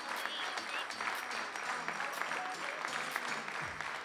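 Spectators applauding over background music with a steady beat of about two beats a second.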